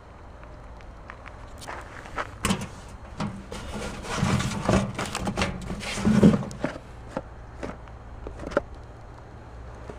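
A metal mailbox being opened and a cardboard parcel scraped and slid out of it: a string of knocks and rubbing, heaviest around the middle, as the box drags against the mailbox.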